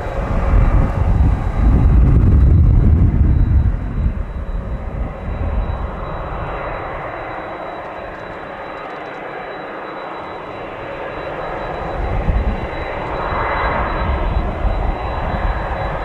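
Boeing 767 jet engines running as the airliner taxis on the runway toward departure. A low rumble is heavy for the first few seconds, eases off, then swells again near the end, with a thin steady high whine from a few seconds in.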